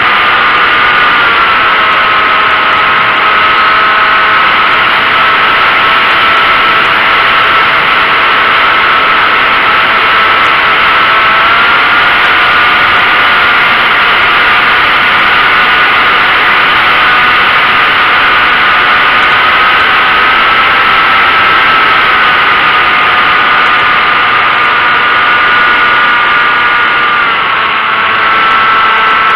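RC model airplane's motor and propeller heard from an onboard camera: a steady whine over rushing wind, its pitch stepping up and down a few times as the throttle changes.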